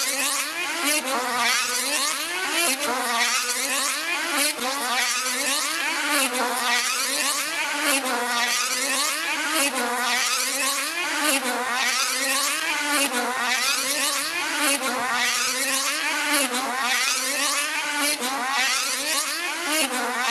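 Tether car's small two-stroke model engine running flat out as the car circles on its wire, the high-pitched note rising and falling about once a second as it sweeps past on each lap.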